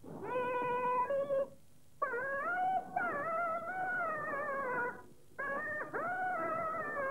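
A woman singing in Henan opera (Yuju) style, holding long notes with a wavering, sliding pitch. She sings three phrases, with short breaks about one and a half and five seconds in.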